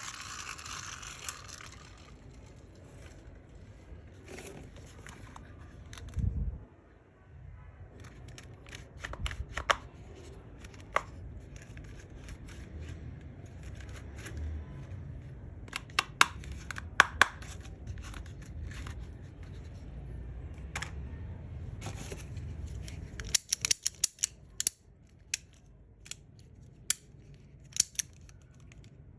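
Toy packaging being handled and cut open: scattered sharp clicks and snips, with a quick run of them near the end, over a low steady hum.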